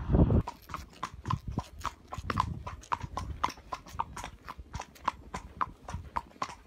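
Horse's hooves clip-clopping on a wet paved road at a walk, about four hoofbeats a second, after a brief low rumble at the very start.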